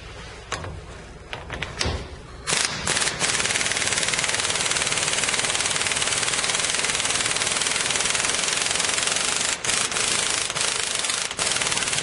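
Air impact wrench hammering on the drive screw of a Tiger Tool 10102 U-joint puller, pressing a universal-joint bearing cup out of the driveshaft yoke. A few light metal clicks come first; the rapid hammering starts about two and a half seconds in and runs steadily, with two brief breaks near the end.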